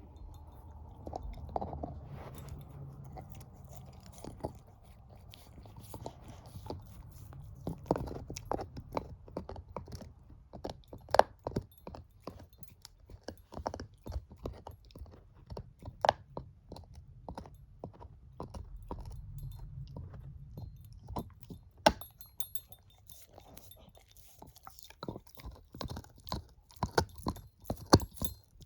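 Shepherd-mix dog gnawing a bone: irregular loud crunches and cracks of teeth on bone, with wet chewing in between.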